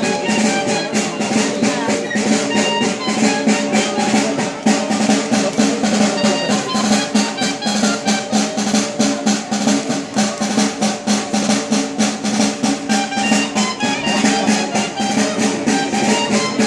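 Live folk dance music: a drum beats a fast, steady rhythm of about five strokes a second under a held melody.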